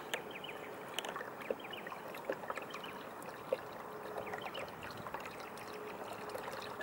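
Water trickling and lapping along a kayak's hull as it moves under an electric trolling motor, with small scattered ticks and a faint steady hum from the motor that comes and goes.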